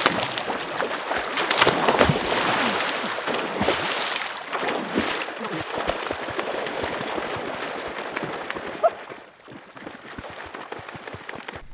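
Lake water splashing and sloshing as people wash and move about in it, irregular and busy, dying down about nine seconds in.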